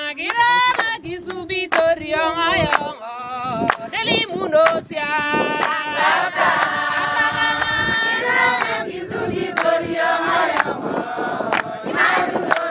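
A group of voices singing together, with sharp percussive beats recurring through the song.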